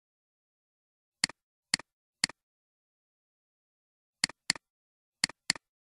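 Computer mouse clicks: three single clicks about half a second apart, then two quick double-clicks a second apart, with silence between.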